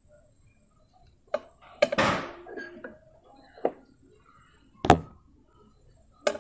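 Handling noises: a few sharp clicks and knocks, roughly one a second, with a short scraping rustle about two seconds in.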